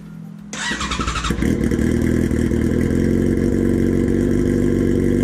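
A vehicle engine starts about a second in and then runs steadily and loudly.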